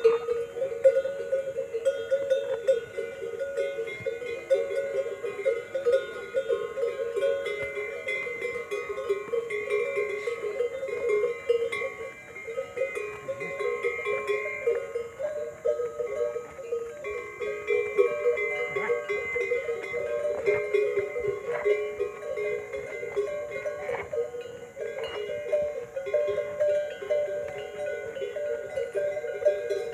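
Many neck bells on a herd of pack animals jangling steadily, a continuous clanking of overlapping bell tones.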